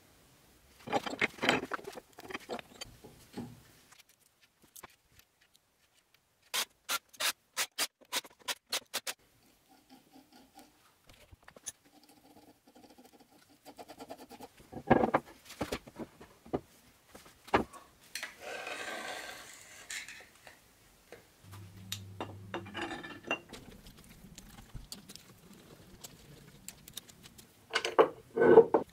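Workshop handling noises from work on a milling machine: scattered knocks and clicks of metal parts and tools, a quick run of about a dozen sharp clicks, a scraping sound lasting about two seconds, and a brief low hum.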